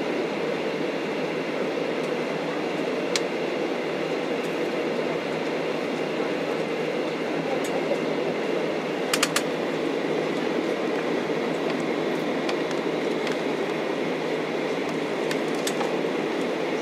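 Steady rumble of an airliner cabin while the plane taxis on the ground, heard from inside the cabin. A few light clicks come through it, with a quick group of three about nine seconds in.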